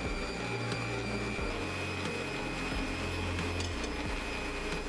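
Stand mixer's motor running steadily with a thin high whine, its beater turning through a thick egg-yolk cream in the plastic bowl.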